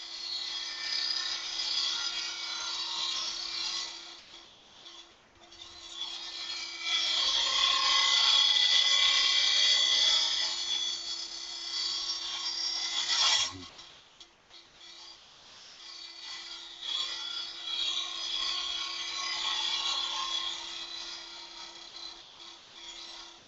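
A turning tool cutting a spinning cocobolo duck-call blank on a wood lathe, a dry scraping hiss in three spells. The middle spell is the loudest and stops suddenly about halfway through, and a steady hum runs underneath.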